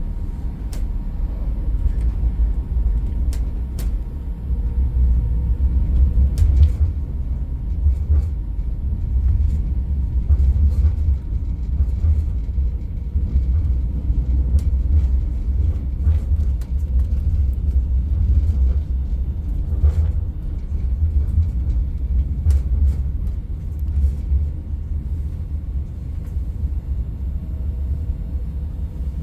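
Train running along the track: a steady low rumble with scattered small clicks and knocks.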